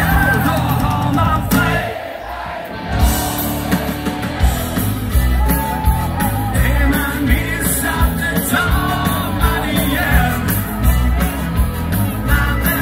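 Live band music with singing and a steady dance beat, played loud over a PA. The bass and drums drop out for about a second, about two seconds in, then the beat comes back in.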